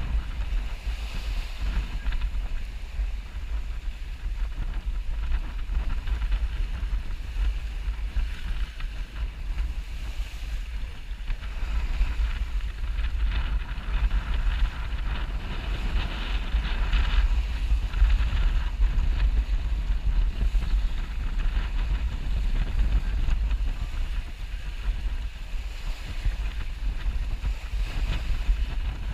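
Wind buffeting a GoPro's microphone aboard a sailboat under way, with the hiss of water rushing past the hull, which swells for a few seconds midway.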